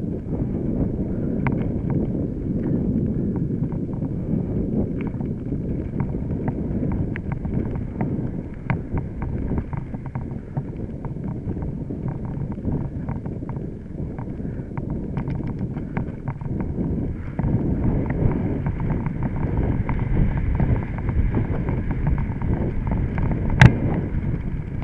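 Mountain bike riding over rough trail: wind buffeting the microphone in a steady rumble, with frequent small clicks and rattles from the bike and one sharp knock near the end.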